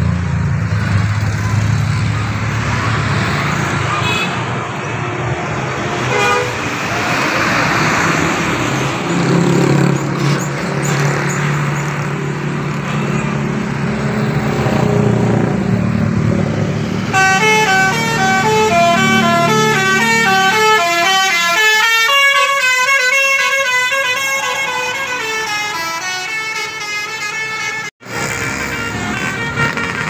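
Road traffic and a heavy diesel engine running, then about halfway through a tour bus sounds a telolet horn: a rapid melody of many stepped horn tones that plays for about ten seconds and cuts off suddenly near the end.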